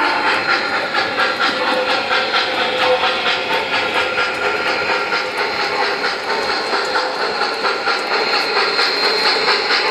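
MTH Premier O-gauge model of the Southern Pacific GS-4 Daylight steam locomotive running slowly, its ProtoSound 2 sound system playing a steady train of steam chuffs with hiss.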